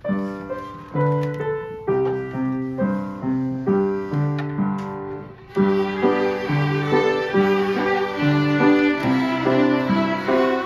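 A ceilidh band playing a dance tune. An upright piano starts alone with alternating bass notes and chords, and a group of fiddles joins in about five and a half seconds in, playing the melody over the piano.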